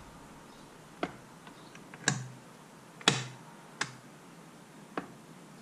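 A handful of sharp clicks, about one a second and the loudest two near the middle, as metal parts are pressed and rocked in the opened Tuff Torq K66 hydrostatic transmission case.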